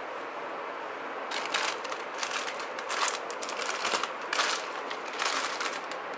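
Plastic instant-noodle packets crinkling as they are handled and moved about, in irregular crackly bursts that start about a second in.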